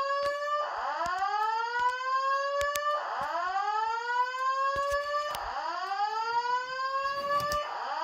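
Simplex fire alarm speaker strobe sounding a whoop evacuation tone: a pitch that rises steadily, cuts off and starts again about every two and a half seconds. Scattered faint clicks sound among the sweeps.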